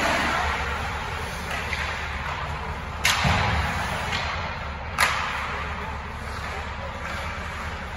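Two sharp cracks about two seconds apart, stick-and-puck impacts in an ice hockey game, over a steady low rumble of the rink.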